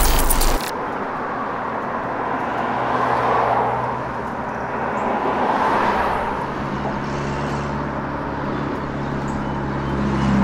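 Road traffic noise: a steady rush of cars with slow swells as vehicles pass, and a low engine hum growing stronger in the second half. A short, loud burst of noise opens it.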